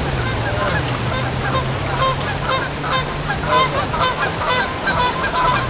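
A flock of birds calling: many short calls repeated and overlapping all through, over the steady rush of a shallow stream.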